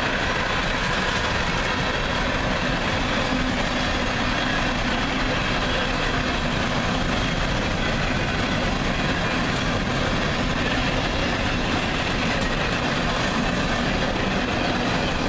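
Empty coal hopper cars of a freight train rolling past. Their steel wheels make a steady noise on the rails that holds even throughout.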